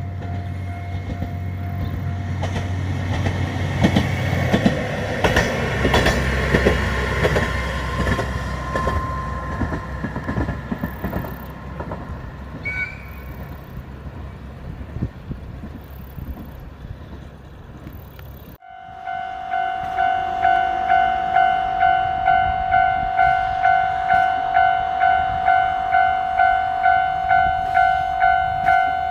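A Nagara Railway diesel railcar passes over a level crossing, its engine droning under the rapid clatter of wheels over rail joints, loudest a few seconds in and then fading. After a sudden break, a level-crossing warning bell rings steadily at about two strikes a second.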